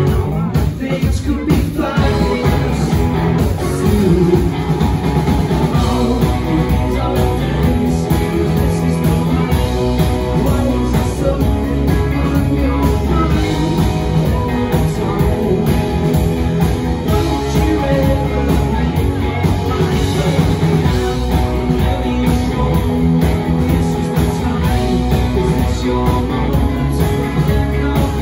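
Live rock band playing: electric guitars, bass guitar and drums, loud and continuous.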